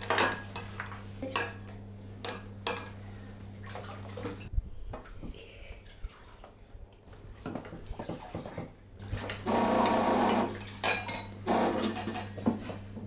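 Metal spoons clinking and scraping against ceramic cereal bowls, a few sharp clinks over a steady low hum. About nine seconds in, a louder buzzing starts and comes back in shorter bursts: a mobile phone vibrating on the glass tabletop.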